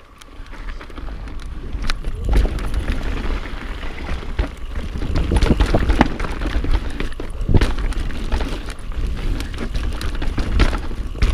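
A mountain bike descending a dirt trail, recorded from a chest-mounted camera: wind rumbling on the microphone and tyres rolling over dirt, building as the bike picks up speed over the first couple of seconds, with frequent sharp knocks and rattles from the bike hitting bumps and roots.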